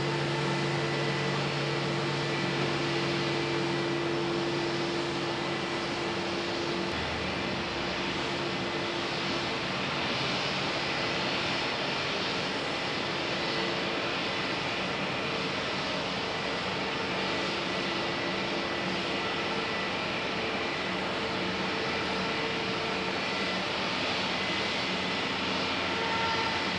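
Jet airliner engines running steadily: a continuous rushing noise with a few steady whining tones through it.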